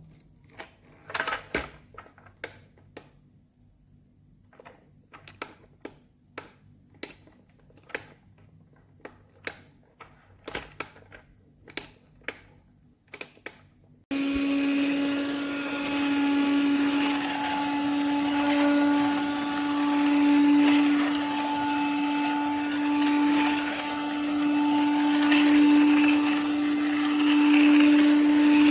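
A series of clicks and knocks, then, about halfway through, a CylRedbat cordless handheld dust-mite vacuum cleaner switches on abruptly and runs steadily with a whirring motor hum.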